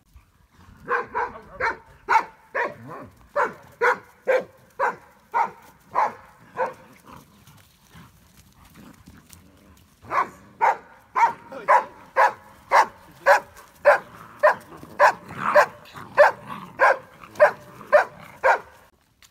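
Briard puppy barking in evenly spaced barks, about two a second. The barks stop for a few seconds partway through, then start again.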